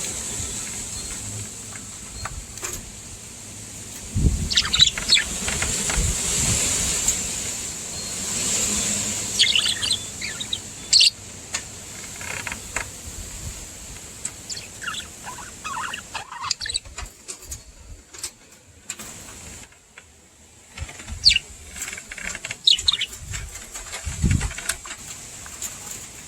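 A pair of budgerigars chirping and chattering in scattered short calls, with a steady high hiss behind them and a couple of low thumps.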